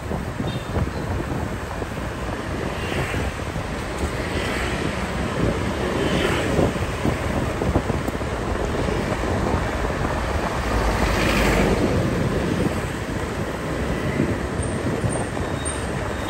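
Wind buffeting the microphone over steady road and traffic noise from moving along a city street, with a few passing vehicles swelling and fading.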